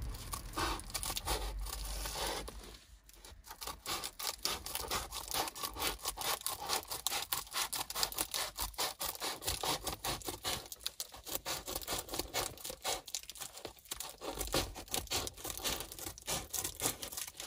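Scissors cutting through a sheet of Reflectix foil bubble insulation: a fast, continuous run of short snips with the foil crinkling, broken by a brief lull about three seconds in.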